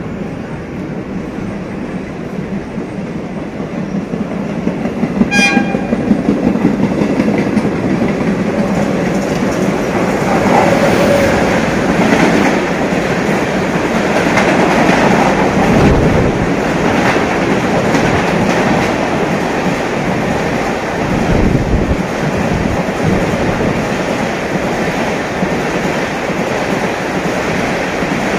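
Mumbai suburban electric local trains running on the tracks, a steady rumble that grows louder about four to six seconds in as a train comes close underneath. A short horn blast sounds about five seconds in.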